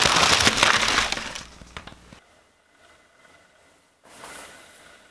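Loud crisp crackling and crunching that fades out over about two seconds, followed by a fainter rustle about four seconds in.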